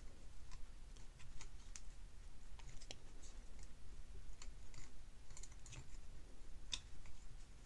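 Faint, irregular small clicks and scrapes of a knife tip working a tiny Torx screw out of a Shimano Stradic 5000 FK spinning reel's rotor, metal on metal.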